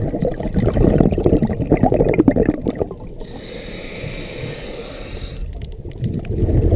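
A scuba diver's regulator breathing cycle heard underwater: exhaled bubbles gurgling and crackling, then about three seconds in a hiss of inhalation through the demand valve lasting about two seconds, and the bubbles of the next exhalation starting again near the end.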